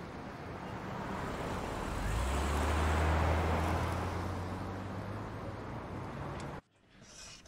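A taxi driving past and away: its engine hum and tyre noise swell to a peak about three seconds in and then fade. The sound cuts off suddenly near the end.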